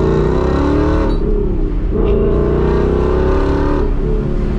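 Mustang GT's 5.0 V8, boosted by an ESS G2 centrifugal supercharger, heard from inside the cabin under hard acceleration: the revs build, break off about a second in, build again and break off near the end, as it pulls through gears.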